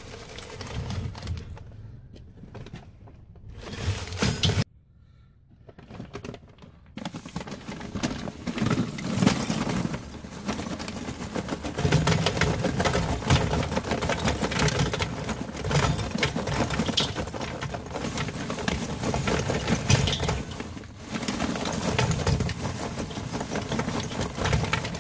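Charcoal pouring from a bag into a metal chimney starter: a dense, continuous clatter of pieces rattling against the metal and each other, starting after a short quiet gap about seven seconds in.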